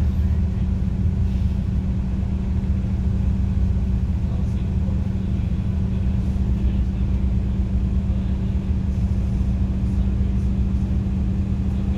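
Mercedes-Benz OC500LE bus's CNG engine and drivetrain running as the bus drives, heard from inside the passenger cabin: a steady hum over a low rumble.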